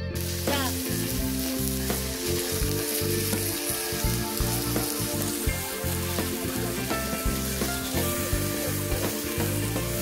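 Beef and pork sizzling on a charcoal grill and a steel griddle plate: a steady sizzle with occasional small ticks.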